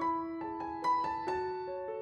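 Background piano music: a gentle melody of single struck notes over held lower notes, a few notes a second.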